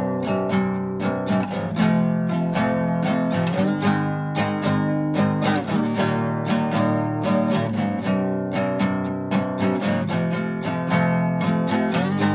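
Music: acoustic guitar strummed in a quick, even rhythm, chords ringing under the strokes.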